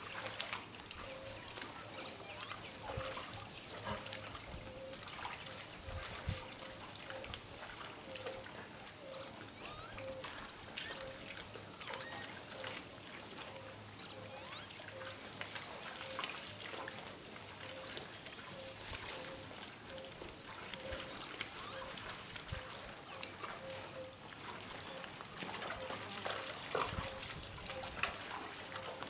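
Insect chirping steadily: a high, cricket-like note pulsed about four times a second, with a lower note repeated more slowly underneath.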